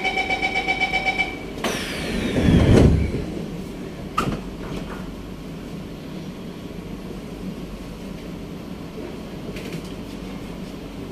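Door-closing warning on a C151A metro train: rapid beeping for about a second, then the sliding doors run shut with a falling whine and a heavy thud about two to three seconds in, and a sharp click a second later. A steady low hum follows.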